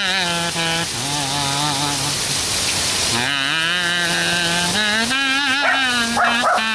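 Kazoo played in long, wavering held notes, in two phrases with a short break about two and a half seconds in, over the steady hiss of heavy rain. A small Papillon–Pomeranian mix dog yelps briefly near the end.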